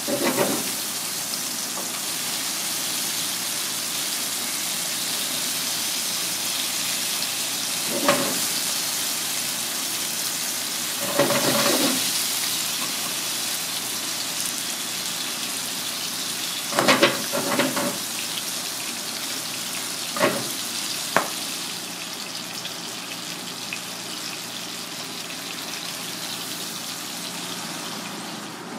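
Crocodile fish fillets sizzling as they fry in butter in a pan, with chopsticks knocking against the pan a few times.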